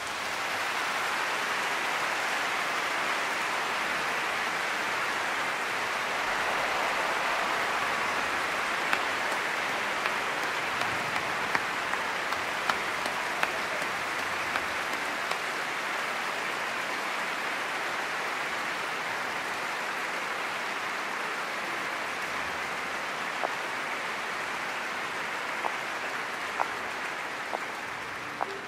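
Large audience applauding: a dense, steady wash of clapping with a few sharper single claps standing out, which cuts off suddenly at the end.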